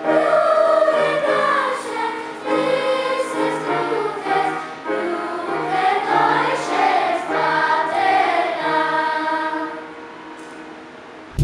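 Children's choir singing in parts, with the singing dying away near the end.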